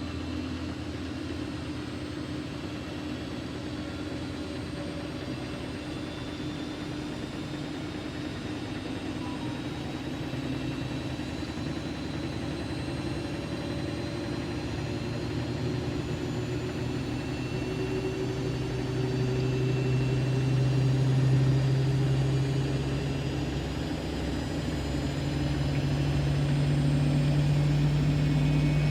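Siemens Siwamat iQ 716 washing machine running, its motor and drum hum slowly rising in pitch and growing louder as the drum speeds up. The sound eases off briefly about two thirds of the way through, then climbs again.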